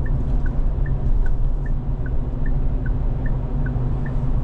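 Inside a moving SsangYong Rexton Sports Khan pickup: a steady low road and engine rumble, with the turn-signal indicator ticking in an alternating high-low tick-tock, about two and a half ticks a second.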